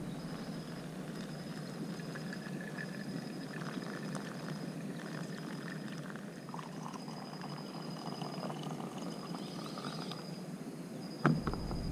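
Hot water poured from a pot onto coffee grounds in a paper filter, a soft trickle, then brewed coffee poured from a thermos jug into an enamel mug. A sharp knock near the end.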